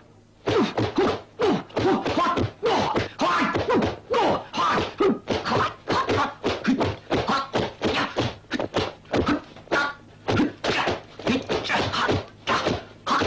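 A rapid, unbroken run of sharp thwacks and thunks, about three a second, the hits of a fast two-man monkey-style kung fu sparring exchange.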